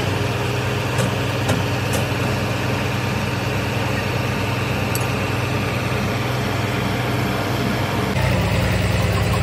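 Kobelco truck crane's diesel engine running steadily at a low idle, with a few light clicks in the first couple of seconds. About eight seconds in the engine note changes and gets a little louder.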